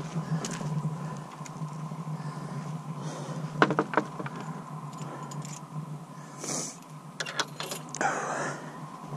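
Wooden farm gate being opened and pushed shut: its metal latch and fittings clink and knock a few times, loudest nearly four seconds in, with more knocks and rattles near the end.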